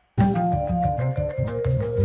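Outro music starting a moment in: quick pitched notes over a steady bass line.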